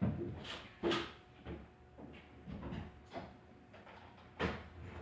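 A series of irregular knocks and rustles, about six in five seconds; the loudest come right at the start, about a second in, and near the end.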